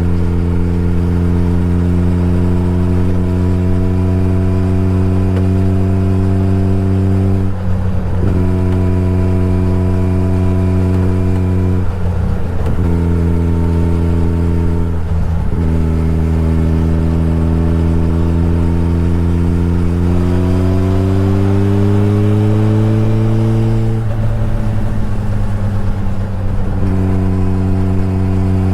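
Suzuki Hayabusa's inline-four engine running under way at a steady cruising note. The note breaks off briefly several times and climbs in pitch for a few seconds before dropping back.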